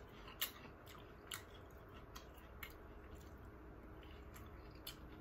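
Faint chewing of a mouthful of food, with several soft, irregular mouth clicks.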